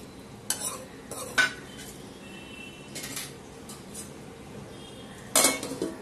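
A metal spoon stirring in a metal kadhai, knocking and scraping against the pan with a few sharp clinks in the first two seconds and lighter ones later. Near the end comes a louder clatter of metal as a steel lid is set on the pan.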